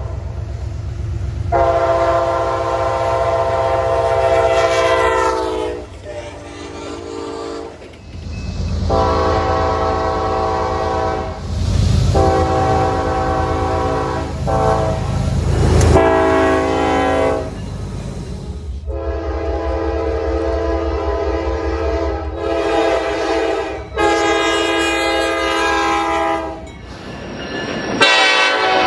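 Train horns sounding a run of long and short chord blasts, from several trains in spliced clips, over the low rumble of the passing trains.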